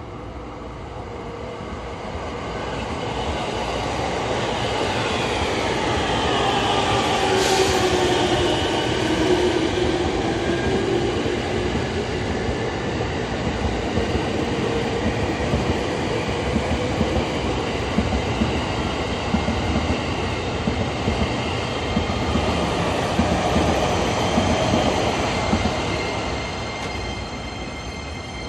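Electric commuter train running close by on the JR Takasaki Line, the rumble of wheels on rail building over the first few seconds, holding, and fading near the end. A motor whine glides up and down in pitch above the rumble.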